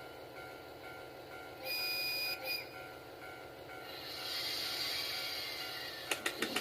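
HO-scale model train running on its track, its running noise building up from about four seconds in, with a few sharp clicks near the end. About two seconds in, a short steady electronic tone sounds briefly.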